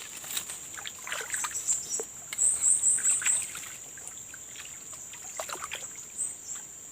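Swamp ambience: a steady high-pitched insect drone with a bird giving a quick run of about five chirps about two and a half seconds in, which is the loudest sound. Small water splashes and trickles come about a second in and again near the end.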